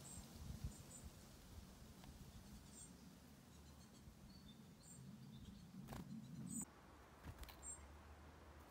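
Faint, short, high bird chirps scattered every second or two over a low steady background rumble, with a couple of soft knocks about six and seven seconds in.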